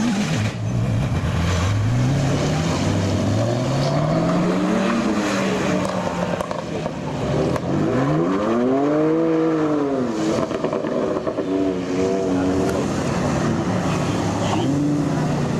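Supercar engines revving hard as the cars accelerate away one after another on a wet road. The engine pitch climbs repeatedly through the gears, and about eight seconds in one engine rises steeply and then falls away.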